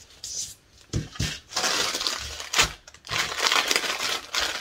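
Clear plastic bag of embroidery floss being handled and pressed flat, crinkling and crackling, with a few soft knocks about a second in.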